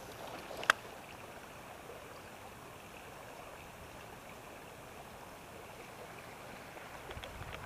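Creek water flowing steadily, with one sharp click less than a second in.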